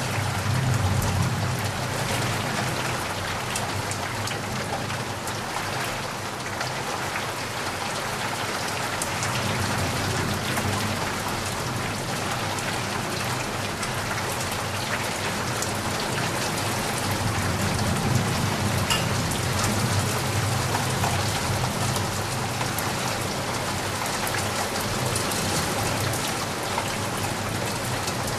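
Heavy rain falling steadily, a dense patter of drops on surfaces over a low rumble that swells and fades at times.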